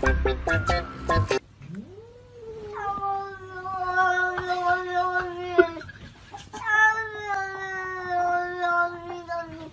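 A cat yowling in two long, drawn-out calls. The first rises in pitch and then holds steady for several seconds; the second follows about a second later. Music plays briefly at the start.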